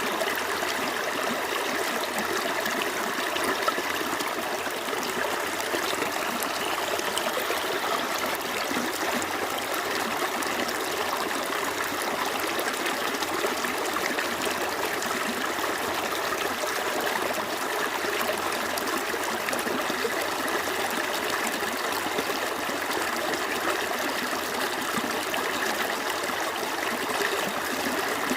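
A small stream flowing over stones, a steady babble and trickle of running water.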